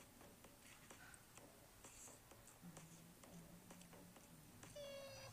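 Faint, irregular small clicks and ticks over near silence, with a short high chirp near the end.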